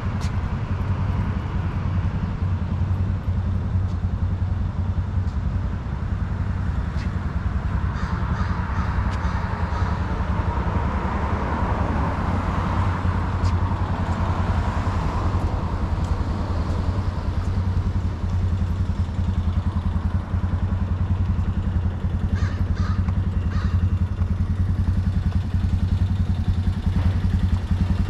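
A utility ATV's small engine idling steadily, a low even throb that grows a little louder near the end.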